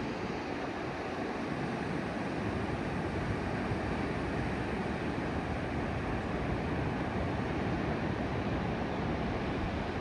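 Steady rush of ocean surf breaking on a sandy beach, an even wash of sound with no single wave crash standing out.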